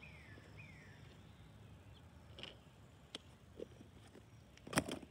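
Quiet outdoor background with two short, falling chirps at the start, like a small bird, then a few light clicks and a quick cluster of sharper taps near the end, the loudest sound here, from a paintbrush being knocked against the easel's palette tray or rinse cup.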